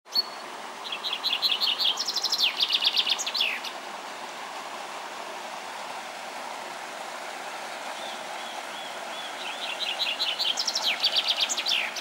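A songbird sings two song phrases of quick repeated notes, each ending in a descending flourish, about a second in and again about eight seconds in. Underneath is the steady rush of a stream and waterfall.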